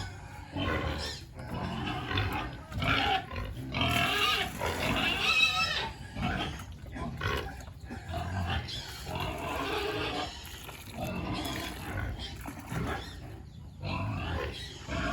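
Pigs grunting and squealing in irregular overlapping bursts, with a higher, wavering squeal about five seconds in.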